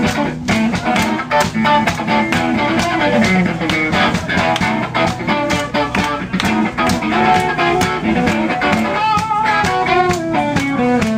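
Live blues band playing an instrumental passage: an electric guitar lead line over a steady drum beat.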